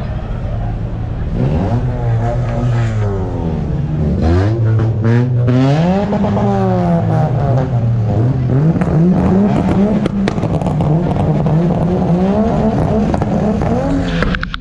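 Car engine being revved again and again, its pitch climbing and dropping in a series of sweeps, with a few sharp cracks about three to five seconds in.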